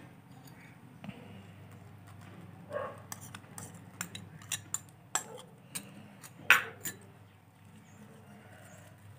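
A metal spoon clinking against a small glass cup of strained fenugreek water: a run of light, sharp clinks over a few seconds, the loudest about two-thirds of the way through.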